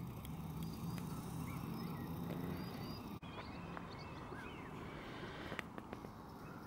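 Small birds chirping repeatedly, short high chirps over a low outdoor rumble. The sound drops out briefly at a cut about three seconds in.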